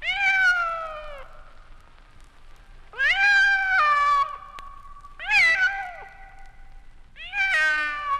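A cat meowing: four drawn-out calls, each about a second long and bending in pitch, a couple of seconds apart.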